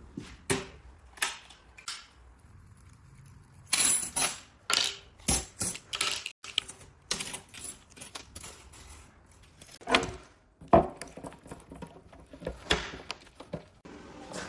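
Steel pieces clinking and knocking against each other and against hard surfaces in irregular, sharp strikes, with denser clusters about four seconds in and again about ten seconds in.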